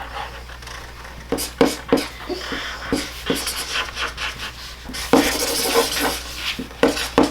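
Chicken clucking in short, irregular clucks, played as a sound effect.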